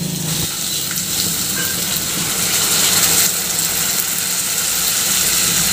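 Water poured in a steady stream into a hot non-stick kadai of fried chicken and masala, splashing and sizzling as it hits the hot pan: about two tumblers added to make the gravy.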